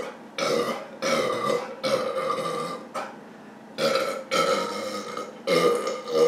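A man belching repeatedly: about six long, loud burps in a row with short gaps between. This is the gas from a 2-litre bottle of Diet Coke, chugged down, coming back up.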